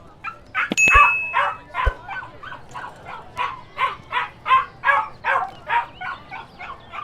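Dogs barking: a steady run of short, high-pitched barks and yips at about two a second, with a couple of sharp knocks about a second in.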